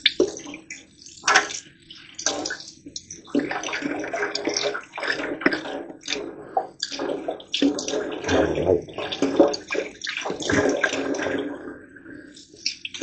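Water running and splashing as a drywall mud pan and taping knives are scrubbed clean by hand, in uneven strokes and swishes.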